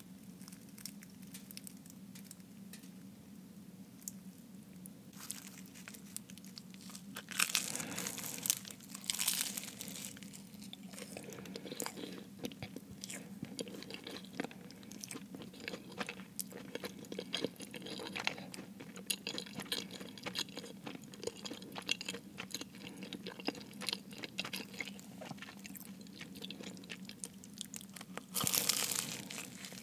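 Close-miked chewing and crunching of a Jamaican beef patty's flaky, browned pastry crust. It is quieter for the first few seconds, with louder crackly bites about seven seconds in and again near the end.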